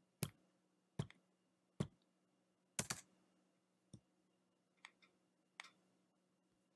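Faint, sharp clicks of a laptop keyboard and trackpad, about one a second at first (one a quick double), then fewer and fainter, over a faint steady hum.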